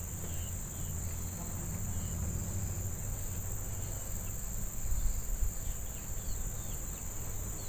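Steady high-pitched insect chorus, likely crickets, droning without a break. A low rumble on the microphone runs under it and swells briefly about five seconds in.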